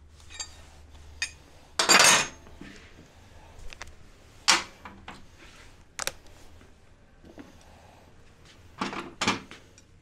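Metal tools and parts clinking and knocking on a workbench during work on a scooter's exhaust. There are several separate sharp clanks, the loudest about two seconds in, and a quick pair near the end.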